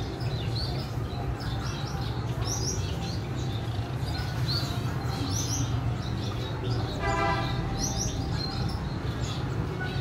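Caged finches chirping: short, high chirps repeat irregularly over a steady low hum, with one brief toot about seven seconds in.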